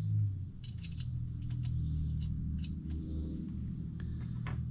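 Small metal clicks and clinks of washers and nuts being handled and fitted onto the cylinder-head studs of a VW Type 1 air-cooled engine: a dozen or so irregular light ticks over a steady low hum.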